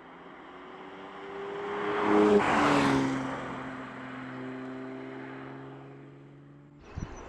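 Porsche 992 GT3's naturally aspirated 4.0-litre flat-six driving past: the engine note grows louder, peaks about two and a half seconds in and drops in pitch as the car goes by, then fades. Near the end a thump and a different engine sound cut in.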